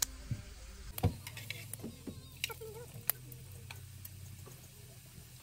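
Roti-making sounds: irregular light slaps and clicks as chapati dough is patted flat between the palms and a metal utensil taps a steel frying pan. A low steady hum starts about a second in.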